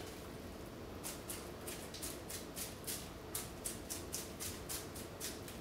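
Seasoning shaker of Maggi All Purpose seasoning being shaken: a faint, quick run of short rattling shakes, about four or five a second, starting about a second in.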